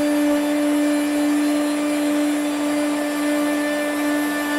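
CNC router spindle running with a steady whine while its surfacing bit planes an oak plank flat, under the hiss of the dust extractor drawing through the hose.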